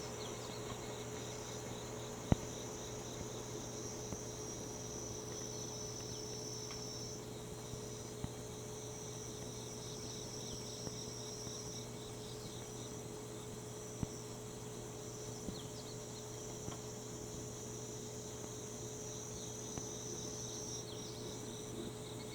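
Niiniizemi (Kaempfer cicada) and higurashi (evening cicada) singing, high-pitched phrases of several seconds that stop and start again, over the steady hum of a kitchen ventilation fan. A sharp tick comes about two seconds in, and a fainter one about fourteen seconds in.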